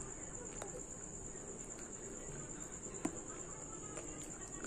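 A few faint, sharp crunches of a dry chunk of multani mitti (Fuller's earth clay) being bitten at the mouth, about three seconds in the strongest, over a steady high-pitched whine.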